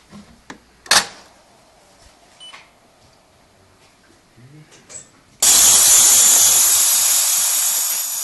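Francis Francis X7 espresso machine: a few sharp clicks, then about five seconds in a sudden loud, steady hiss of steam being let out through its steam wand.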